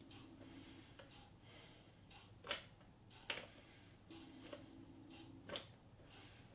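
Faint scraping of a silicone spatula pushing thick chocolate ganache out of a glass bowl into a plastic piping bag, with three sharp clicks, the loudest sounds, about two and a half, three and a half, and five and a half seconds in.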